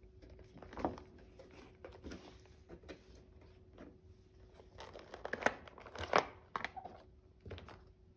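Rustling and crinkling from a soft zippered goggle case and its packaging being handled, with the goggles and a cloth bag being pulled out; the handling noises are irregular, with louder crinkles about a second in and again around five to six seconds in.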